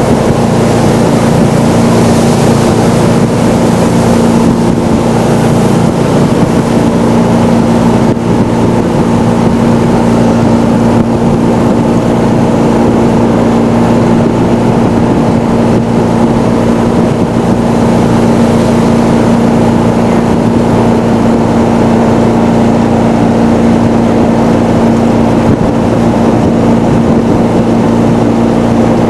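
Jet boat's engine running steadily at speed under way: a loud, constant engine note that holds the same pitch throughout.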